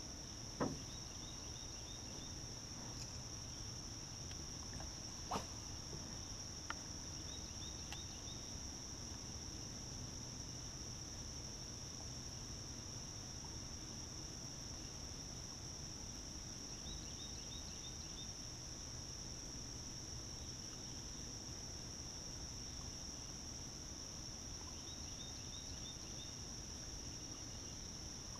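Steady high-pitched insect chorus droning without a break, with a few short runs of quick chirps every several seconds. A sharp knock comes right at the start and another about five seconds in, with a lighter click a second later.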